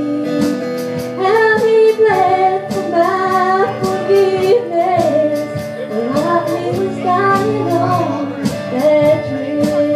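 A woman singing a gospel song live, her voice gliding between sustained notes, with acoustic guitar and electric bass accompanying.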